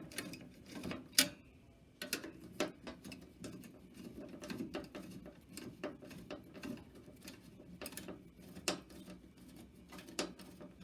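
Irregular small clicks, taps and scrapes of a screwdriver and metal parts as the spring-loaded screws of a CPU cooler are undone on a desktop motherboard, the sharpest click about a second in.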